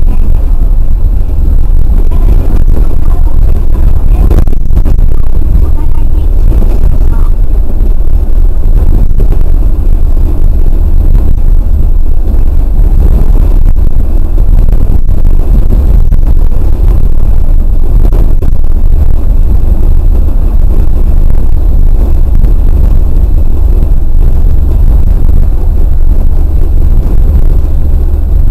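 New Tram 100A-series rubber-tyred automated guideway train running along its concrete track, heard from beside the driving cab: a loud, steady low rumble of tyres and drive, so loud that it distorts the recording.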